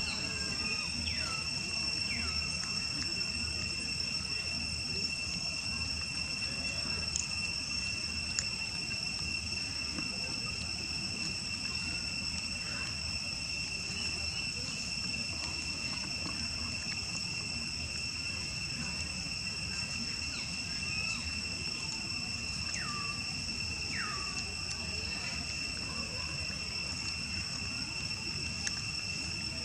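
Insects droning steadily at a constant high pitch, with a few short falling calls heard about a second in and again near the end.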